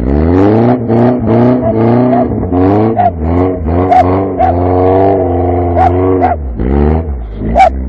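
Lada Niva's four-cylinder petrol engine revving hard, its pitch rising and falling over and over as it climbs a muddy slope under load. A small dog yaps in short barks from about three seconds in, with the loudest two near the end.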